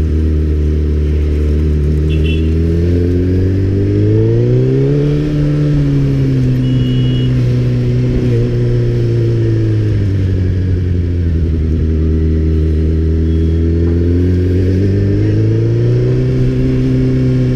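Suzuki Hayabusa's inline-four engine running on the road. Its pitch rises smoothly about four seconds in, eases down over the next several seconds, and rises again near the end.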